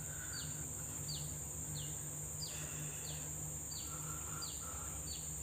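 A bird repeating a short, high, downward-sliding note about every 0.7 seconds, some eight times, over a steady high-pitched insect drone.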